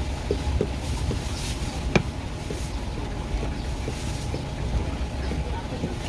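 Steady low rumble with soft, scattered knocks and one sharp click about two seconds in.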